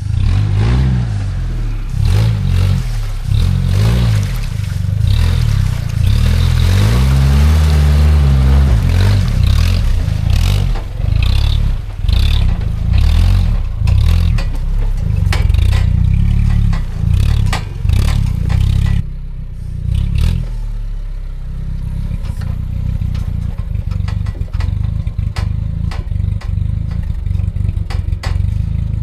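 Old Jeep Cherokee's engine revving up and down over and over as it is driven hard off-road, with clattering and scraping from the vehicle working over rough ground. The revving eases to a steadier run about two-thirds of the way through.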